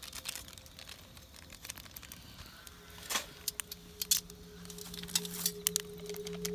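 Wood campfire crackling, with irregular sharp snaps and pops scattered throughout. From about halfway through, steady low music tones fade in and grow louder.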